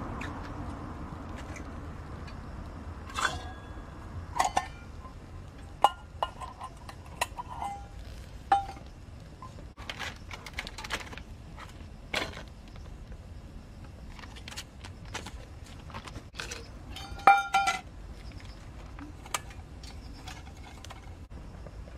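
Stainless steel camp cookware clinking as it is handled: a series of sharp metallic knocks and clinks, some ringing briefly, with a loud cluster of clinks near the end, over a steady low background.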